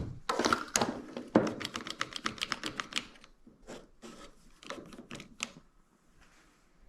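Rapid run of light, sharp clicks and taps from small hard objects being handled on a workbench, quick for the first few seconds, then a few scattered taps before it goes quiet.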